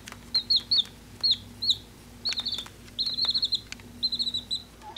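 A bird chirping: short, high, falling chirps, a few single ones and then quick runs of several in a row, with a few sharp clicks between them.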